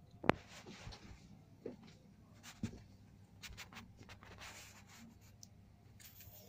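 A homemade PVC-pipe rubber-band gun being handled: one sharp click just after the start, then a few faint clicks and rubbing of hands on the plastic.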